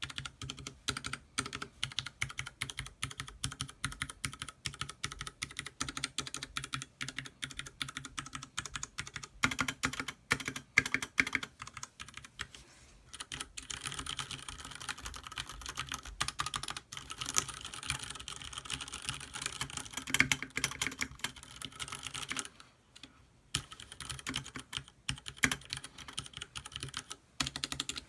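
Typing on a Leopold FC660M mechanical keyboard with red linear switches and PBT keycaps: a quick, irregular patter of keystrokes. About halfway through it turns into a faster, denser burst of typing, and there are brief pauses near the middle and about three quarters of the way in.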